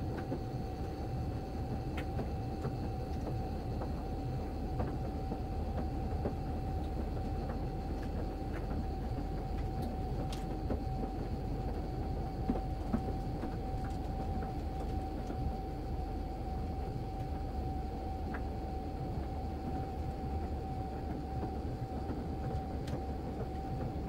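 A stacked Samsung Grande AI washing machine and dryer running at the same time: a steady low rumble and hum with a constant mid-pitched whine, and faint ticks here and there.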